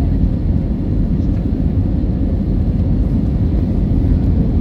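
Steady low rumble of airliner cabin noise: jet engines and airflow heard from inside the passenger cabin during the flight's descent.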